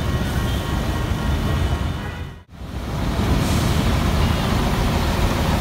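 Diesel engine of a Mitsubishi Fuso flatbed truck, loaded with a road roller, running at low speed as it rolls up close, mixed with a passing motorcycle. The sound drops out briefly about halfway through, then comes back.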